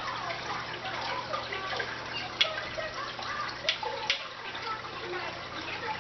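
Aquarium water bubbling and trickling over a steady low hum, with three sharp clicks in the middle of the stretch, while two tiger oscars fight in the tank.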